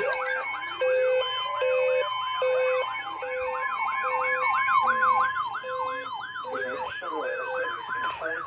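Electronic emergency alert sounding: a yelping siren tone sweeping rapidly up and down, about three to four times a second. Under it a lower beep pulses roughly once a second, and a steady higher tone holds from about one to six seconds in. It is the alarm ahead of a severe thunderstorm warning broadcast.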